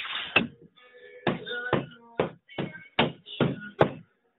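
An ax blade chopping into a wooden doorjamb to chisel out a recess: a series of sharp, uneven knocks, about two a second.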